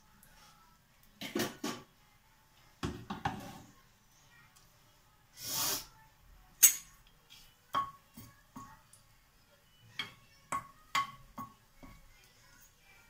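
Kitchen clatter: a few short knocks early on, a sharp clack about halfway, then a metal ladle knocking several times against a pressure cooker pan with short ringing clinks, as whole spices are stirred in hot oil.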